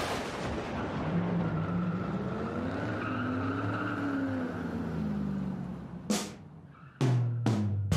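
Produced intro sound effect: a steady rushing noise carrying a low tone that rises and falls, then three sharp, ringing hits near the end that lead into drum-led music.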